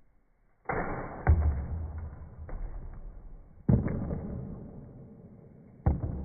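Three sudden thuds, the first about a second in, the others near four and six seconds, each trailing off in a fading rush of noise.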